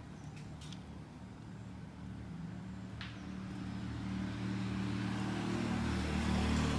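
A motor vehicle's engine running steadily in the background, getting louder toward the end as it comes closer.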